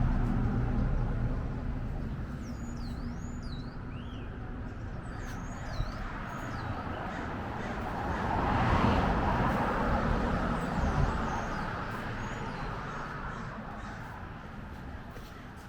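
Outdoor street ambience: birds calling with quick, high chirps over a low rumble of traffic, which swells as a vehicle passes about halfway through.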